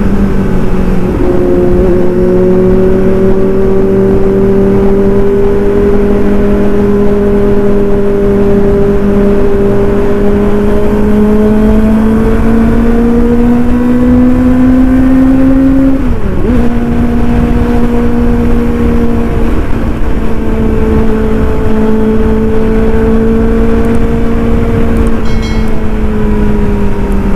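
Kawasaki ZX-25R inline-four with an aftermarket racing exhaust, ridden at steady, fairly high revs. The pitch climbs slowly, dips briefly about two-thirds of the way through as the rider shifts up, then holds steady at lower revs.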